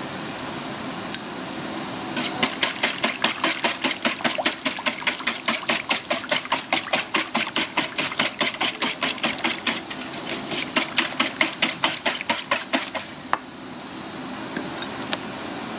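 Rapid, even knocking, about four to five strokes a second, with a brief lull about ten seconds in and a last single knock shortly after.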